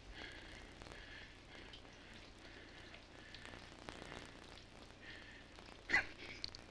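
Faint steady background hiss, with a man's short breathy laugh near the end.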